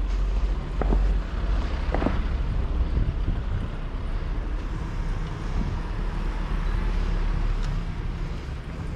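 Wind rumbling on the microphone of a moving camera, with two brief clicks about one and two seconds in.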